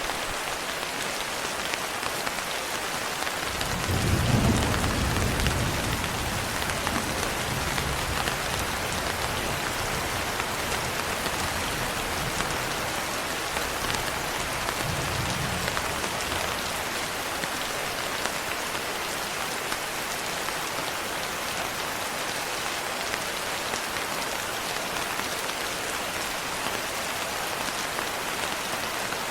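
Steady rain falling, with a roll of thunder that swells about four seconds in and rumbles away over the next ten seconds or so.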